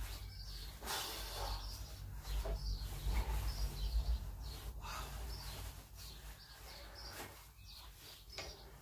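Stiff lead screw of a restored pillar drill vice being wound by hand, giving a short squeaky scrape about once a second with each turn.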